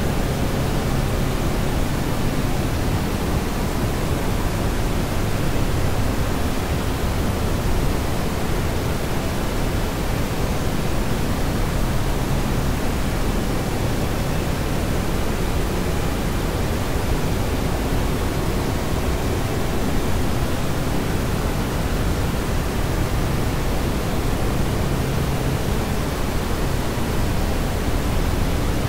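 Steady rushing noise, like static, unchanging and heavier in the low end: a continuous noise track playing back in a multitrack audio mix.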